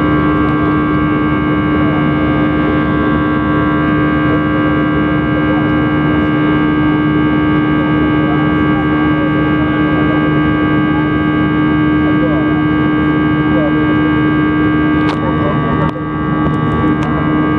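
Airbus A320 jet engines at climb power, heard from inside the cabin beside the wing: a loud, steady drone with a deep hum and a set of high whining tones above it. A few small clicks come near the end.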